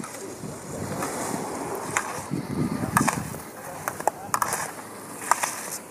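Slalom skis carving and scraping on firm snow, with sharp clacks of gate poles being knocked aside by the racer roughly once a second, some in quick pairs.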